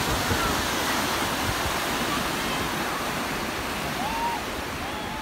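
Ocean surf breaking and washing up a sandy beach: a steady rush of waves, with faint distant voices of people in the water.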